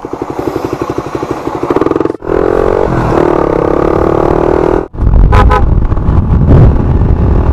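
Suzuki Raider 150 Fi's single-cylinder four-stroke engine under way: first accelerating with its firing beat quickening, then a steadier, higher note. It breaks off abruptly twice, and the last part is mostly a low rumble of wind and road on the microphone.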